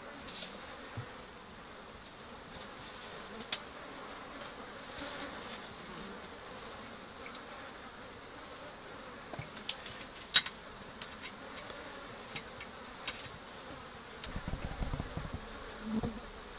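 Flies buzzing steadily, with a few sharp clicks, the loudest about ten seconds in. Low rumbling knocks come in near the end as the camera is moved.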